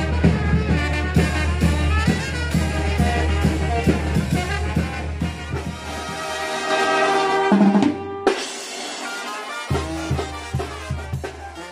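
Brass band (banda de música de viento) playing dance music, with trumpets over a steady drum beat. About eight seconds in the sound breaks off for a moment, then music resumes and slowly fades.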